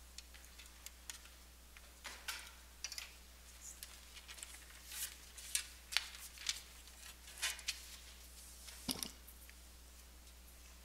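Scattered light clicks and rustles of offering plates and altar vessels being handled and passed from hand to hand, over a steady low hum of the room. The handling noises bunch between about two and nine seconds in, the last of them a little louder.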